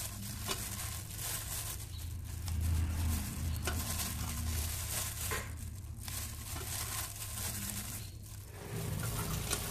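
Pot of water bubbling with chicken wings blanching in it. A steady low rumble sits beneath the bubbling, with a few faint clicks.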